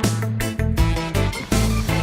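Upbeat background music with a bouncy bass line and a steady beat.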